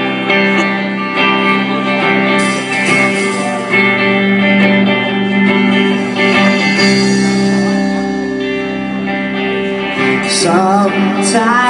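Live rock band playing the song's instrumental intro: held electric guitar chords over bass, steady and loud, with a wavering melodic line coming in about ten seconds in.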